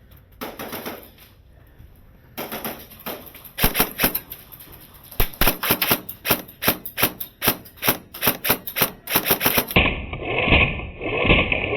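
Airsoft guns firing a steady string of sharp shots, about three a second, for several seconds, then the sound turns muffled near the end.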